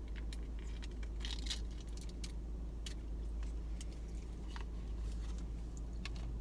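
A plastic dipping-sauce cup being peeled open and handled, in scattered small crackles and clicks, over a steady low rumble.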